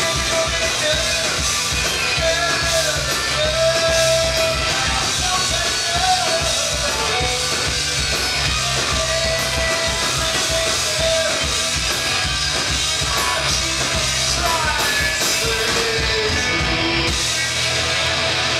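Punk rock band playing live, with electric guitars, bass and drum kit, recorded from the audience. Near the end the drums and bass stop and the guitars ring on.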